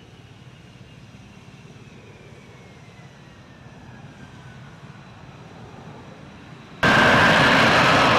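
Jet fighter engine noise. A faint jet whine slowly falls in pitch, then about seven seconds in it is suddenly replaced by much louder, steady jet engine noise with a high whine.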